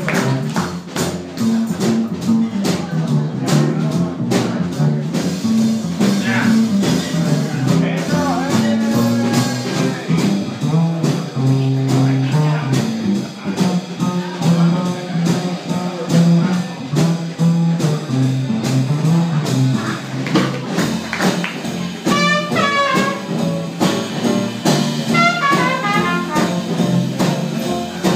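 Small traditional jazz band playing live: an upright bass walks prominently under a strummed guitar, and a trumpet comes in with a wavering melody about 22 seconds in.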